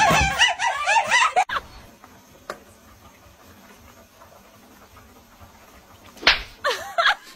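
Two cats fighting: a rapid string of high, bending squeals and yowls for about the first second and a half, then quiet. A sudden sharp knock about six seconds in is followed by several short high cries.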